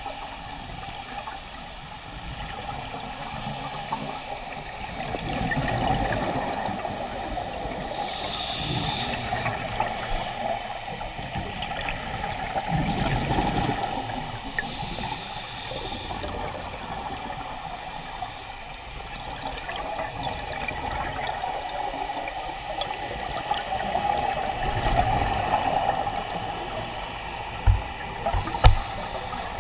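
Scuba diver's breathing underwater. Each exhale is a gurgle of bubbles that swells every several seconds, and each inhale is a short hiss through the regulator. Two sharp knocks come near the end.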